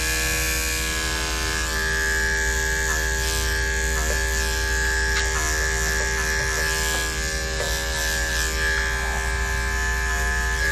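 Corded electric dog-grooming clipper running steadily with an even, high hum while it is worked through a dog's coat, with a few faint ticks from the blade.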